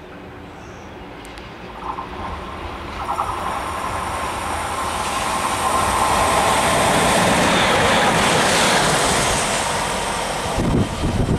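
Electric locomotive hauling a goods train, approaching and passing. The rumble and rail noise build to a peak in the middle, with a steady whine running through it. Near the end come a few low knocks.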